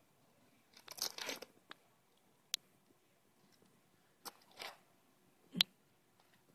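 Bearded dragon's claws scratching at and tapping on a computer monitor: a few short scratchy scrapes and sharp single taps, the loudest tap near the end.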